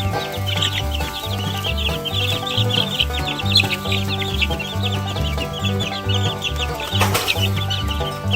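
A brood of two-week-old Barred Rock chicks peeping continuously, many short high chirps overlapping, over background music with a steady bass line. A brief thump or rustle about seven seconds in.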